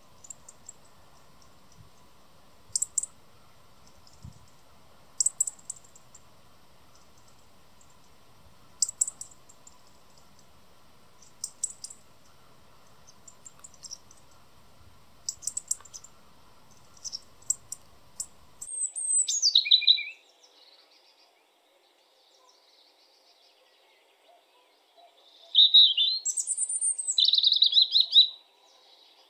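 European robin giving short, sharp tick calls in little clusters every two to three seconds, then singing two high song phrases, the first falling steeply in pitch.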